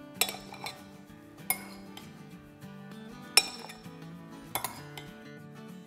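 A spoon clinking against the serving dish as mango is spooned onto a layered falooda: a handful of sharp, spaced-out clinks over soft background music.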